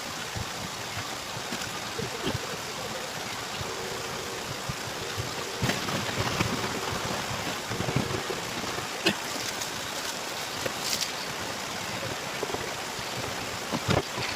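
Water running and splashing in a washing machine tub as it is cleaned, with a few scattered knocks and clatters.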